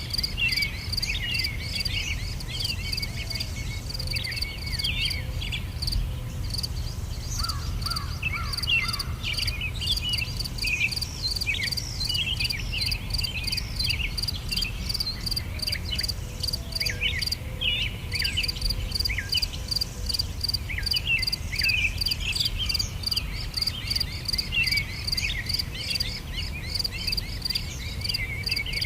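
Insects chirping in a steady pulsing trill, with many small birds twittering over it and a low steady rumble beneath.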